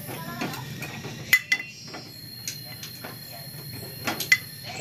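Sharp metal-on-metal clinks as a steel gear is worked off its shaft in an opened motorcycle engine crankcase: two clinks about a second in and two more near the end, each ringing briefly.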